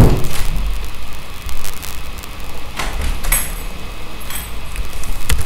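Scattered clicks of a computer keyboard and mouse over a steady low hum.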